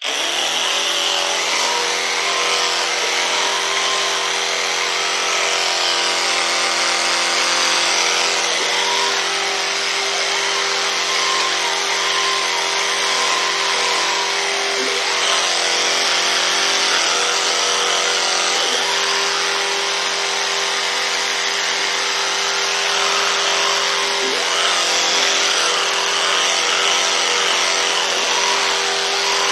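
Electric toothbrush brushing teeth: a steady motor buzz with even overtones under a dense scrubbing hiss.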